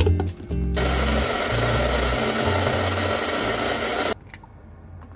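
Countertop blender running, crushing ice cubes and tomato chunks into juice, for about three seconds, then cutting off abruptly. Just before it starts there are a few clicks as the lid is fitted onto the glass jar.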